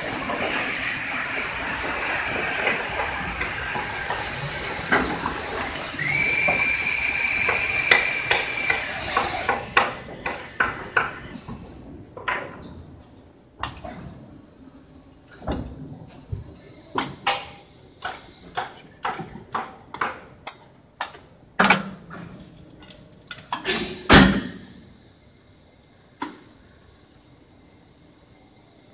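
Die-casting workshop machinery: a steady hiss with a high whistling tone, which cuts off suddenly about ten seconds in. A series of irregular sharp metallic clanks and knocks follows; the loudest two come near the end, and then it goes quiet.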